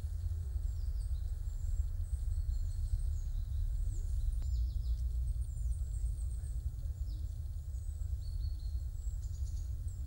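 Forest ambience: small birds chirping in many short, high calls, over a steady low rumble.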